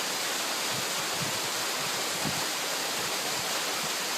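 Waterfall falling onto rocks, a steady rushing of water. A few faint low knocks come through in the first half.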